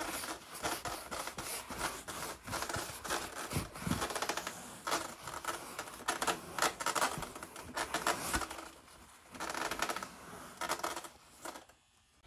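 Quick repeated rubbing strokes on a Palomino leather car seat cover, scrubbing and cleaning the leather in preparation for re-dyeing. The strokes stop near the end.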